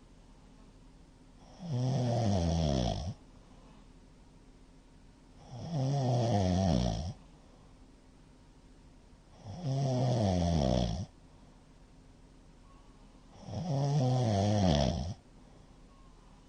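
A man snoring loudly: four long snores about every four seconds, each falling in pitch as it goes. The uploader puts this heavy snoring partly down to drinking too much that evening.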